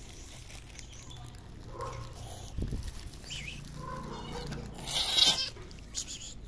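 Hungry stray cats meowing, several separate cries scattered through, some high-pitched and some lower. About five seconds in there is a short, loud burst of noise.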